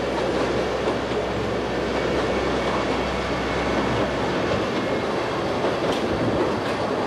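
Ikawa Line train running, heard from on board: a steady rumble of wheels on the track with low hum and light clatter.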